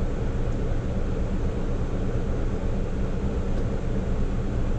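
Hino heavy truck's diesel engine idling steadily while stopped, heard from inside the cab as a constant low rumble.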